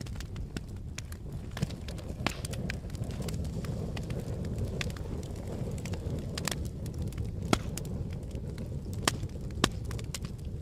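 Campfire burning: a steady low rumble of flames with irregular sharp crackles and pops of burning wood, a few louder pops in the second half.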